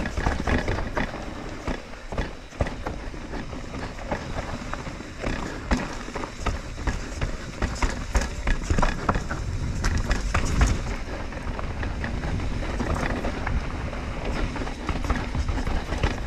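Trek Slash full-suspension mountain bike riding fast down a rough trail: tyres rolling and skittering over the ground, with a continual rattle of quick knocks and clicks from the bike. Wind rumbles on the microphone.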